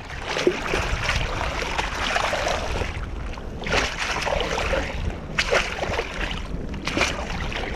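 Water sloshing and splashing as a perforated metal sand scoop is shaken in shallow river water to sift out sand, with a few sharper splashes in the second half.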